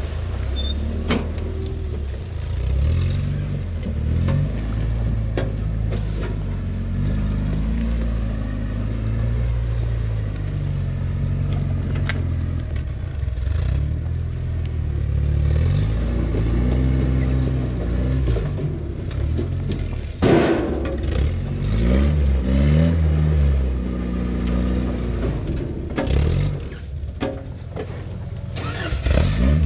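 Off-road rock crawler's engine revving up and down as it works over rocks, with a sharp knock about twenty seconds in and a few more near the end.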